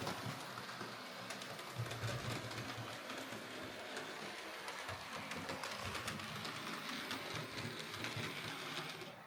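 Hornby OO gauge Battle of Britain Class model steam locomotive running on its track: a steady small-motor whir with many small clicks from the wheels on the rails.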